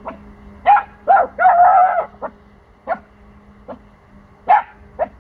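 Four-month-old pomsky (Pomeranian–husky cross) puppy barking in a run of about eight short barks, one of them longer and drawn out about a second and a half in. Territorial alert barking at unfamiliar sounds he is unsure of.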